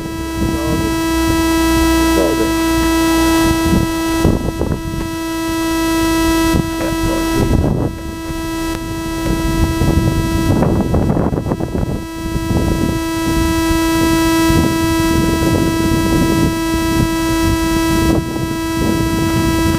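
A steady electronic whine with a ladder of overtones from the powered-up quadcopter's electronics, cutting out for about a second midway, over gusts of wind buffeting the microphone.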